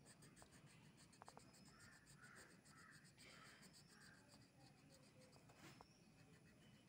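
Faint scratching of a colour pencil shading on paper, in quick repeated strokes.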